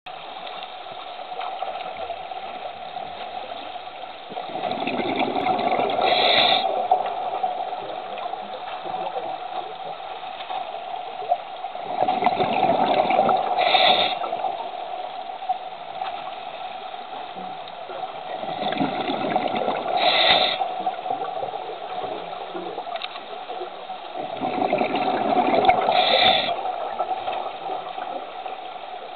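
Scuba diver's breathing heard underwater: four slow breaths about six to seven seconds apart, each a swelling gush of exhaled bubbles ending in a brief hiss, over a steady hum.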